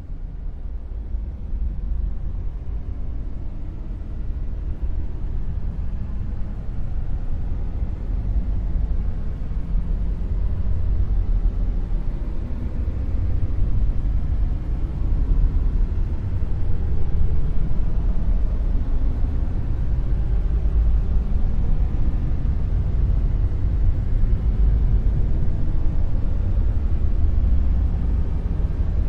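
Dark noise sound effect: a steady deep rumble of noise, heaviest in the bass and thin in the treble, swelling slowly over the first ten seconds or so and then holding.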